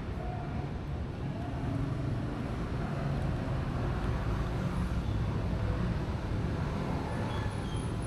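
Low, steady rumble of nearby road traffic, swelling a little through the middle as a vehicle seems to pass.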